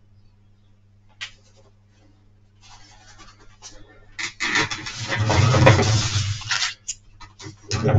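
Cloth work gloves being pulled on and rubbed close by: a rough scratchy rustling that grows from about a third of the way in and is loudest for a couple of seconds past the middle, with another burst near the end, over a faint steady low hum.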